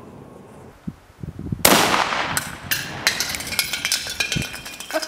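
Zastava M59/66 semi-automatic rifle (7.62×39 mm) firing: a loud shot with a trailing echo about one and a half seconds in, followed by a few sharper cracks and then irregular clattering with some ringing.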